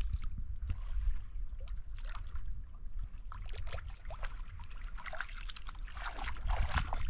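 Water splashing and trickling in irregular small bursts, busier about five seconds in, over a steady low rumble.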